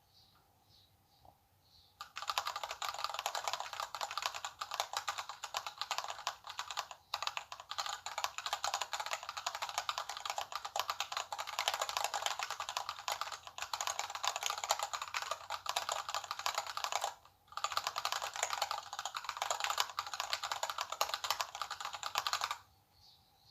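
Very fast typing on a computer keyboard: a dense, continuous stream of key clicks that starts about two seconds in, breaks off for a moment about three-quarters of the way through, and stops about a second before the end.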